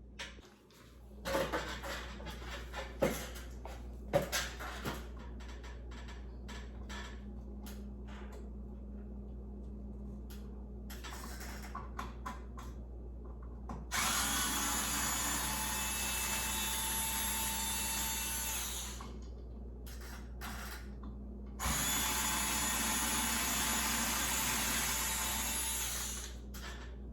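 Handheld power drill running in two long steady runs of about five and four seconds, the loudest sounds here. Before them come several knocks and clicks of hardware being handled.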